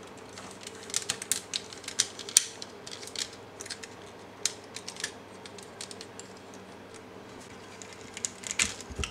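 Plastic parts and joints of a large gold-painted knock-off MPM-03 Bumblebee transforming figure clicking and snapping as they are handled and folded into place. The clicks are irregular and come in clusters, with the sharpest snap about two seconds in, a quieter stretch after the middle and another cluster near the end, over a faint steady hum.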